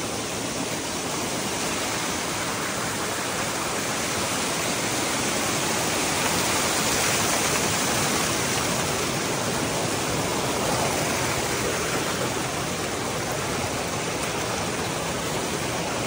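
Waterfall: a steady rush of falling water, slightly louder around the middle.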